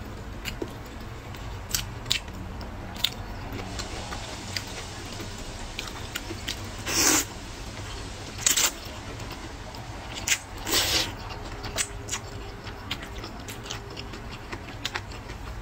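Close-up eating sounds of rice noodles in soup: wet chewing and lip smacks throughout, with a few loud slurps of noodles midway.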